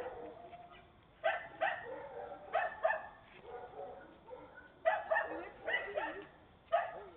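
A dog barking in short runs of two to four barks with pauses between, about ten barks in all.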